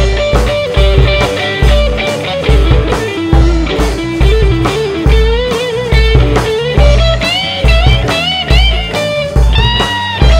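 Live blues band playing an instrumental break: an electric guitar lead with many bent, sliding notes over a steady bass line and drums.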